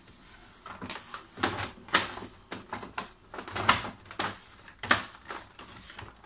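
Hard plastic knocks and clicks as the rear cover of a Samsung CLP-365W laser printer is handled and pushed into place on the printer body. They come as an irregular string of sharp clicks, the loudest about two seconds in.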